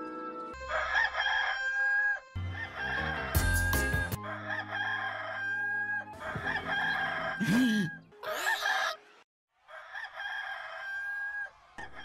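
Hollywood Edge stock rooster-crow sound effect (Bird Rooster 2 Crow PEO21501), a cock-a-doodle-doo that ends in a long held note, heard about five times in a row.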